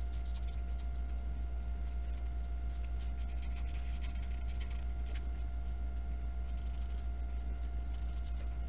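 Felt-tip marker scratching over paper in quick, irregular strokes as an area is coloured in, over a steady low electrical hum.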